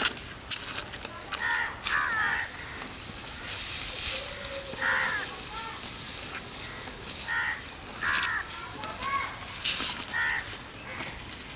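Crows cawing: about seven short, harsh calls spaced a second or two apart, over a steady hiss with scattered clicks.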